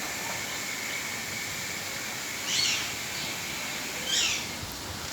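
A parrot giving two short, loud calls about a second and a half apart, over a steady outdoor hiss with a faint high drone.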